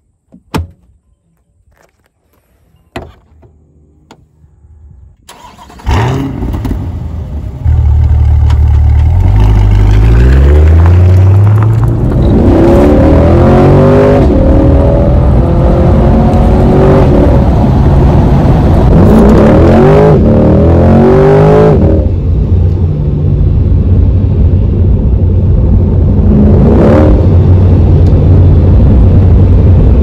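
Chevrolet C8 Corvette Stingray's mid-mounted 6.2-litre V8. After a few light clicks, the engine starts about five seconds in, then it accelerates hard, its pitch rising through several quick upshifts, and settles into steady, loud running for the last third.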